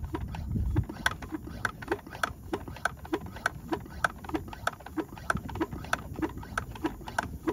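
Hand-pump sprayer tank being pumped by hand, each plunger stroke giving a click with a short squeak, about three strokes a second. The distilled-water tank is being pressurized toward 30 to 35 psi for a turbine engine rinse.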